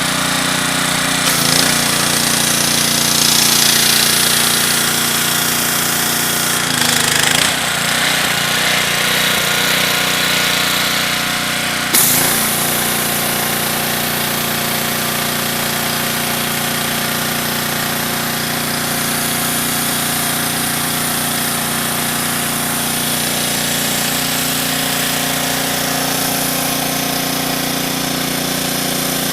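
Pressure washer running steadily with the hiss of high-pressure water spraying through a surface cleaner. The sound shifts about seven seconds in, and there is a sharp click about twelve seconds in, after which it runs evenly.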